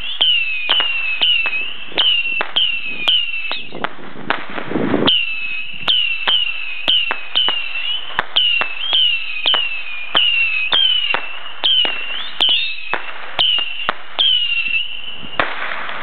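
Saturn missile fireworks battery firing off its small whistling rockets one after another, about two a second: each launch is a short whistle dropping in pitch, with sharp pops among them. The volley pauses briefly a little before halfway, then carries on until it stops near the end.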